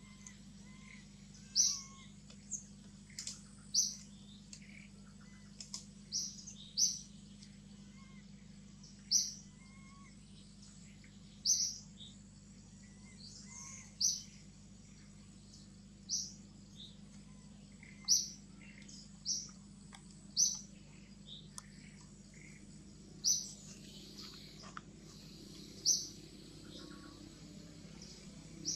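A bird chirping: short, high notes repeated about every two seconds, with fainter lower chirps between them, over a steady low hum.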